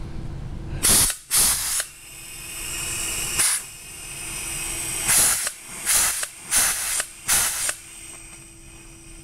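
Huck 352 air-powered rivet gun cycled empty on shop air. About seven short, sharp hisses of air come as it strokes, with softer hiss swelling between them.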